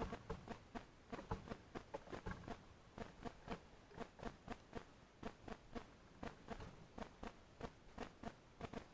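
Birds pecking and tapping at seed in a feeder: quick, irregular taps, several a second.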